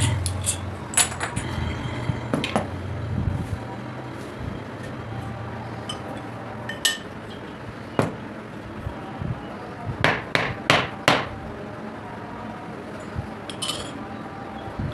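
Hammer and metal hand tools knocking and clinking on metal parts: sharp single knocks at irregular intervals, with a quick run of four about ten seconds in. A low hum sits under the first few seconds.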